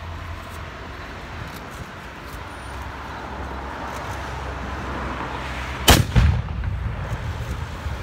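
Small muzzle-loading field cannon fired once as a ceremonial salute: a single loud, sharp bang about six seconds in, followed at once by a second peak and a short rumbling echo that dies away.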